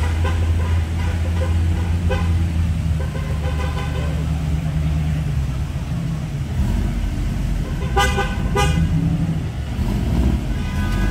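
Car engines running with a steady low rumble, and two short car-horn toots about eight seconds in, with voices faint underneath.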